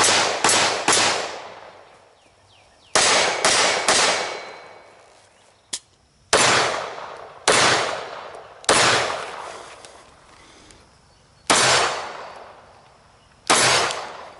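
9mm Glock pistol shots fired in strings, each trailing off in a long echo: a quick burst of three or four at the start, three more about three seconds in, then single shots spaced a second or two apart.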